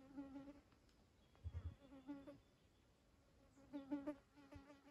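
A flying insect buzzing in short passes close by, about four bursts of a wavering, droning buzz. A short low thump comes about one and a half seconds in.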